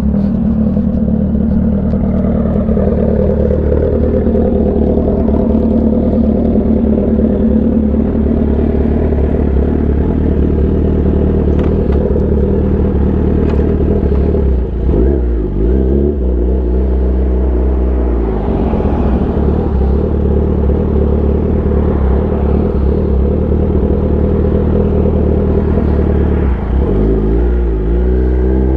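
Kawasaki ZX-10R's inline-four engine running through an SC-Project aftermarket exhaust. Its pitch drops about halfway, holds lower for a few seconds and comes back up. Near the end the revs climb in quick steps.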